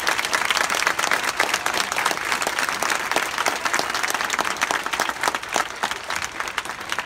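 Crowd of football supporters applauding, with many sharp hand claps close by over the steady clatter of the wider crowd.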